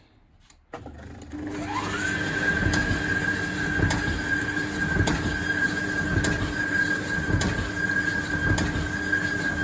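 Indesit condenser tumble dryer switched on about a second in, its motor whine rising and then holding steady as the drum turns on a new belt. A regular light knock comes a little more than once a second, the noise the owner puts down to the drum riding on a bumped, not perfectly round track.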